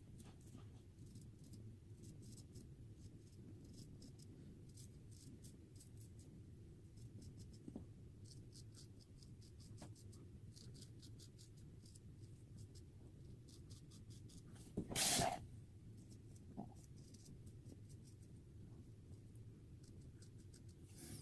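Feather Artist Club SS straight razor scraping through shaving lather and stubble: a faint, irregular run of quick scratchy strokes. A brief louder burst comes about fifteen seconds in.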